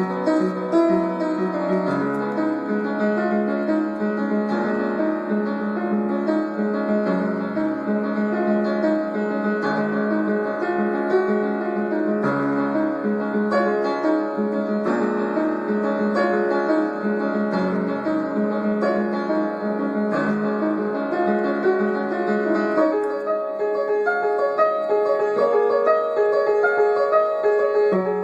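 Solo piano playing a flowing figure of repeated notes over held low notes that change every few seconds.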